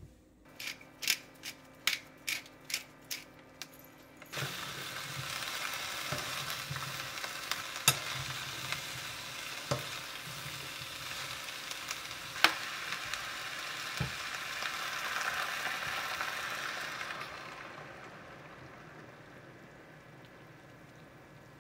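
A kitchen knife cutting mushrooms on a wooden cutting board, about nine quick cuts. Then chopped mushrooms and zucchini sizzle in a frying pan while being stirred with a metal spoon that clinks against the pan a few times. Near the end the sizzle fades as soy milk is poured over the vegetables.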